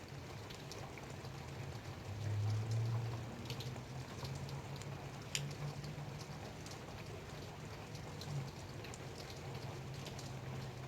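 Light rain falling, individual drops ticking irregularly over a soft steady hiss. A low steady hum runs underneath, swelling for about a second a couple of seconds in.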